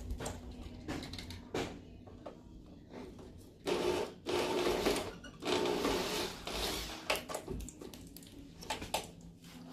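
Small electric motor running in three short bursts, from about four to seven seconds in, amid scattered clicks and knocks of parts being handled.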